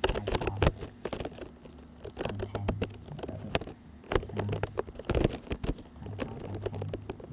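Keystrokes on a computer keyboard: irregular clicking as a command is typed out letter by letter. A low hum comes and goes under it several times.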